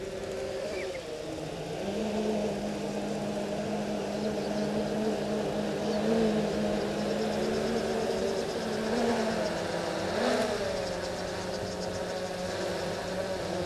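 A vehicle engine running steadily, its pitch wavering a little and rising briefly about ten seconds in. A faint insect buzz sounds high up in the second half.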